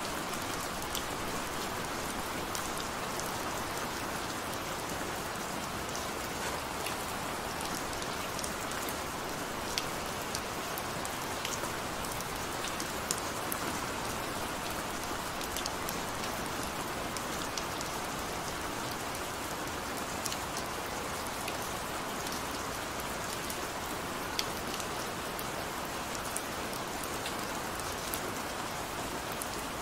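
Gentle rain falling steadily, an even hiss with many small drop ticks scattered through it.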